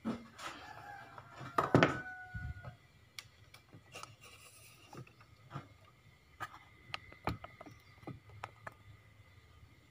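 Small tools and phone parts handled on a repair bench: scattered light clicks and rubbing, with a louder clatter and a brief ringing tone about two seconds in.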